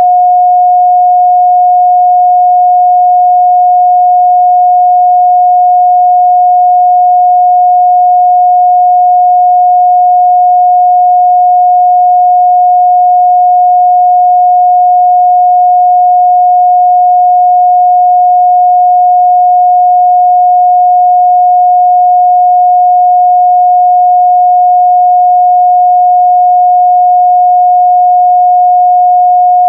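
A steady, unbroken 721 Hz sine-wave test tone, a single pure midrange pitch held at a constant loud level.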